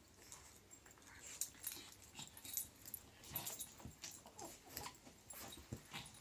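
A terrier and a pug play-fighting in soft blankets: short, irregular snuffles, huffs and small grunts from the dogs, mixed with blanket rustling.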